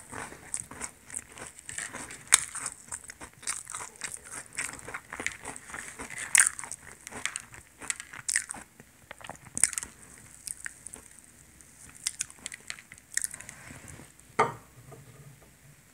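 Crisp crackling and crunching of a fried, crumb-topped soboro pastry being torn apart by hand and chewed, in many small irregular crackles. A single sharper knock sounds near the end.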